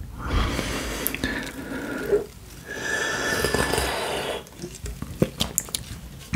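Close-miked drinking of fizzy cherry cola from an aluminium can: two long sipping pulls with a short break between them, then a few wet mouth clicks near the end.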